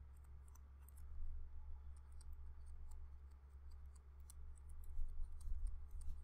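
Stylus tip tapping and scratching on a tablet screen while handwriting: faint, irregular little ticks over a steady low hum.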